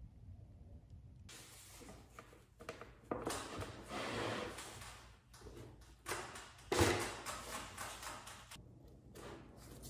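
Wooden desk frame being handled and shifted on a wooden workbench: rubbing and scraping in two spells, with a sudden knock about seven seconds in as the loudest sound.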